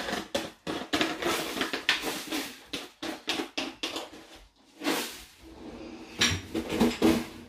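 Thin plastic bag crinkling and rustling in irregular crackles as it is handled, with a broad swish about five seconds in.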